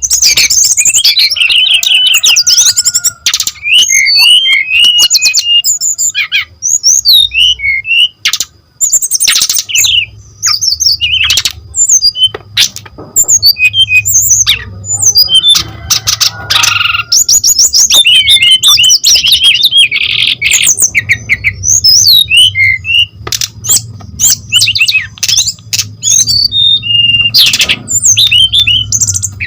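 Brown-chested jungle flycatcher (sikatan rimba dada coklat) singing loudly and without pause: rapid, high, varied twittering phrases and trills, with sharp clicks scattered through the song.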